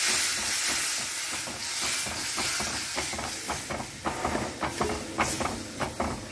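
Whisked curd poured into hot mustard oil and fried taro in a kadhai, sizzling with a loud hiss that slowly dies down. In the second half a spatula scrapes the pan in quick stirring strokes.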